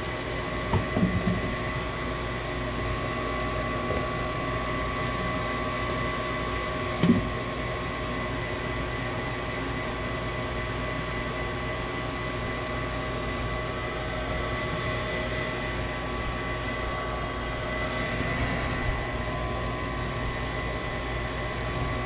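Furnace draft inducer motor running steadily, a constant whine over a low hum, with a few short knocks about one second and seven seconds in.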